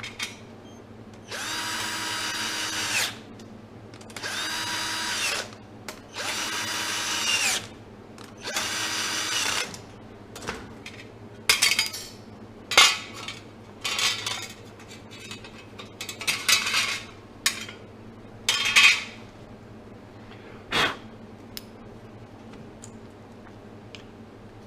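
Power drill-driver spinning up in four whining runs of one to two seconds each, then a string of short bursts, as screws are run into the display case's panels.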